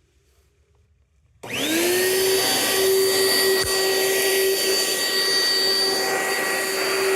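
Vacuum cleaner switched on about a second and a half in: its motor whine rises quickly as it spins up, then runs steadily with a loud rushing hiss.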